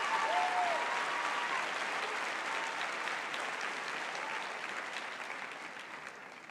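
Audience applauding, the clapping fading steadily toward the end.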